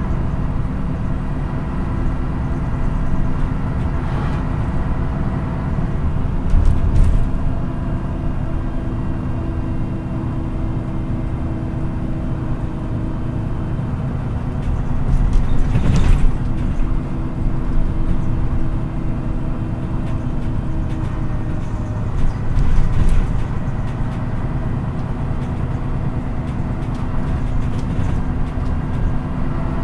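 MAN NÜ 313 bus heard from inside while driving: the diesel engine hums steadily over a low road rumble. A few brief knocks or rattles come through now and then.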